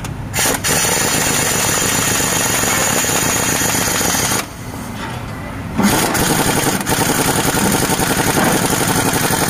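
Impact wrench hammering on a nut of the rear stabilizer link. It runs for about four seconds, stops briefly, then runs again for the rest of the time.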